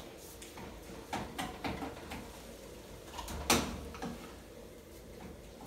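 Light kitchen handling sounds, a few soft knocks and clicks of utensils and containers, with one sharp click about three and a half seconds in.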